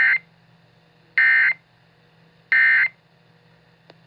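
Emergency Alert System SAME data tones: three short, identical screeching bursts about 1.3 s apart, the end-of-message code that closes an alert.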